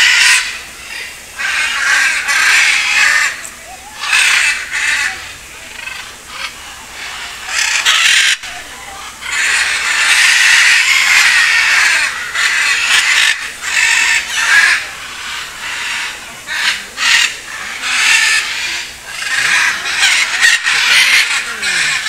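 Several macaws squawking loudly, with harsh calls in irregular bursts and a longer run of calling about ten seconds in.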